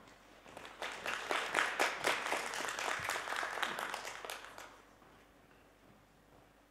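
Audience applauding: a patter of many hands that starts about half a second in, swells, and dies away after about four seconds.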